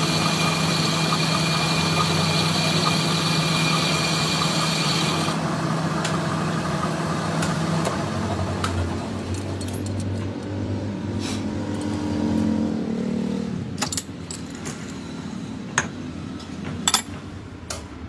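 Metal lathe running while a boring bar cuts the bearing seat of an aluminium motorcycle wheel hub, a steady hum with a high cutting whine that stops about five seconds in. The lathe keeps turning, then runs down and goes quiet in the second half, followed by a few sharp metal clicks near the end.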